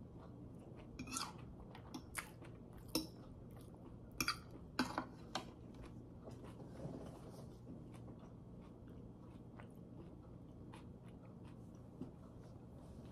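A person chewing a mouthful of pad thai noodles with close-miked mouth sounds: several sharp wet clicks and smacks in the first five seconds, then quieter chewing.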